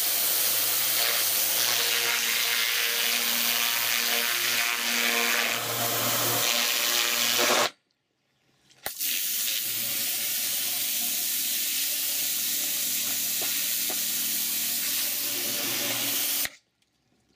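Kärcher pressure washer running, its high-pressure jet hissing loudly onto a wet concrete path over the steady hum of the pump motor. The spray cuts off for about a second just before halfway, resumes, and stops shortly before the end.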